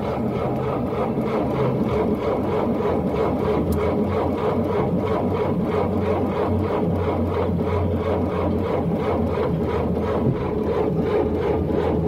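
Car engine cranking on its starter motor without firing, a steady rhythmic churn of several strokes a second: an engine that will not start on a bad battery.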